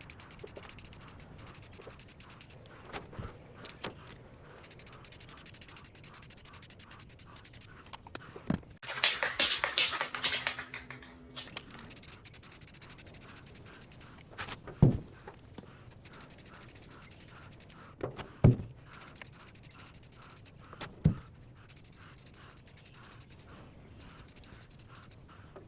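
Paintbrush scrubbing paint onto a surface in fast, even strokes, with three short knocks in the second half.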